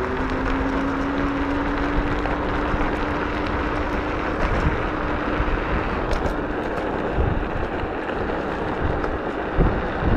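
Inmotion L9 electric scooter at full throttle in sport mode: the motor's whine rises slowly in pitch as it gathers speed, over a steady rush of tyre and wind noise, with a couple of knocks from bumps in the road near the end.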